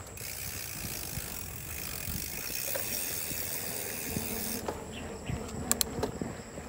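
Trek Super Marlin 5 mountain bike's rear freewheel ticking rapidly as the rider coasts, with the tyres rolling over the trail. The buzz drops away about four and a half seconds in, and a few sharp clicks follow.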